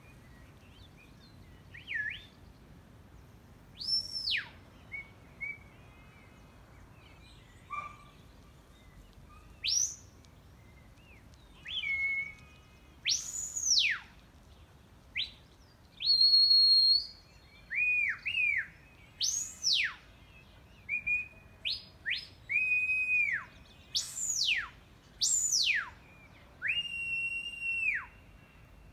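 Shepherd's whistle commands to working border collies: a series of sharp whistle notes, some sweeping up, some sweeping down and some held steady for about a second, coming more often from about twelve seconds in. The loudest is a long high held note about sixteen seconds in.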